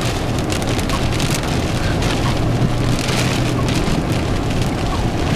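Tornado winds at very close range: a loud, steady roar of wind and heavy wind-driven rain, with many sharp ticks of rain striking.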